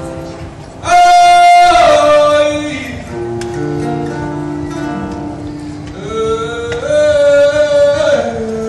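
Live music with acoustic guitar under a slow melody of long held notes. The loudest note swells in about a second in, and another strong held note comes near the end.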